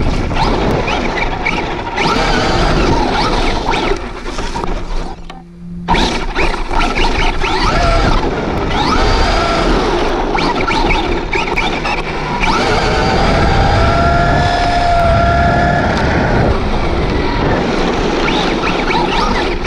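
Traxxas Rustler 4x4 RC truck's brushless motor, run on a Castle Sidewinder 4 ESC and a 3S LiPo, whining up and down in pitch as the truck accelerates and slows, over a loud rush of tyre and wind noise at the onboard camera. There is a brief lull about five seconds in.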